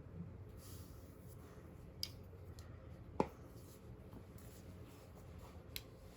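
A few small sharp clicks and taps of makeup items being handled, three in all, the loudest a little past halfway, over a low steady room hum.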